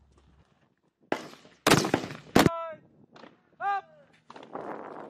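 Rifle fire: three shots in quick succession starting about a second in, each with a short echo.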